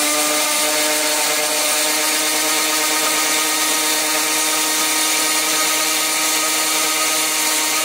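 Electric mixer-grinder running steadily at full speed with a loud, even motor whine, grinding green chillies into a paste.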